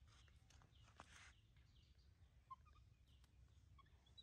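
Near silence: faint outdoor background with soft, repeated high bird chirps and a brief rustle about a second in.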